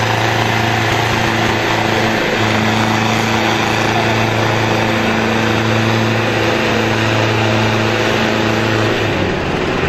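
Tractor diesel engine pulling under load in a tractor tug-of-war, running at steady high revs with a loud, even drone. The note falls away about a second before the end.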